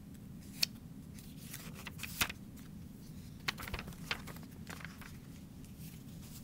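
Pages of a picture book being handled and turned: a few short paper rustles and clicks over a low steady hum.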